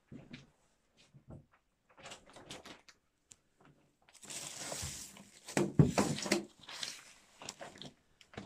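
Handling noise: a few faint taps and knocks, then from about four seconds in a loud rustling with sharp knocks as a pale curtain is pushed aside.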